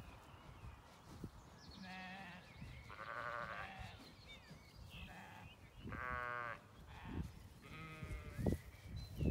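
Sheep bleating several times, short wavering calls, the strongest about six seconds in, over the low crunching of a Zwartbles ewe chewing and tearing grass close by.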